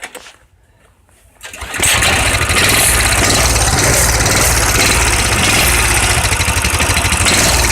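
Motorcycle engine starting from cold with the choke on: it catches about a second and a half in and then runs on steadily at idle.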